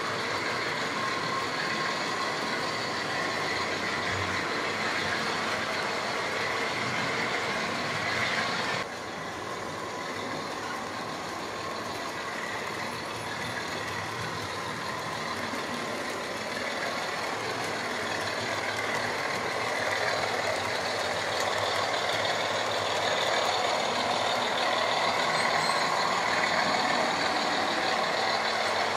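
Electric model trains running on track: a steady rumble and clatter of wheels on rails with motor hum. It drops suddenly about nine seconds in and builds again toward the end.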